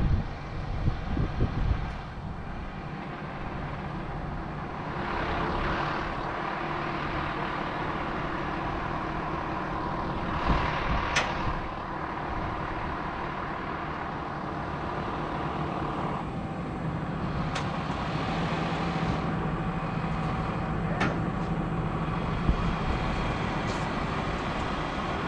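Crane truck's engine running steadily while the crane works, swelling in level a few times, with three or four brief sharp high ticks or squeaks over it.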